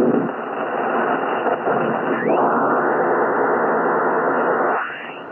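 Yaesu FTDX101MP transceiver receiving 160-metre sideband: dense static and band noise, limited by its 3 kHz receive filter, as the dial is tuned between stations. Short pitch glides come as the tuning passes signals, about two seconds in and again near the end.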